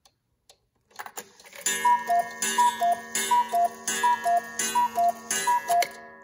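Hand-carved cuckoo clock calling the hour: faint ticking, then a mechanical clatter about a second in as the strike starts, then six cuckoo calls. Each call is a higher note falling to a lower one, sounded by the bellows with a puff of air.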